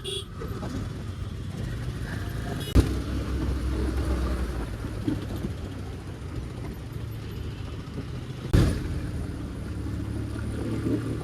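Motorcycle engine running steadily while riding through city traffic, with road and wind noise. Two sharp knocks cut through, about three seconds in and again about eight and a half seconds in.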